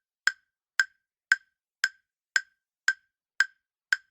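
Quiz countdown-timer sound effect: sharp clock-like ticks, evenly spaced at about two a second, eight in all.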